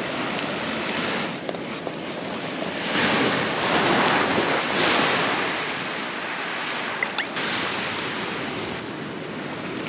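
Surf washing onto a beach: a steady rush of noise that swells louder for a couple of seconds in the middle, with a small click near the end.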